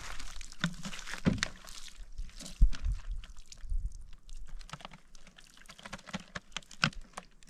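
Water poured from a plastic jerrycan into a plastic bottle and splashing on dry ground, with knocks from the plastic containers being handled and one heavy thump about two and a half seconds in.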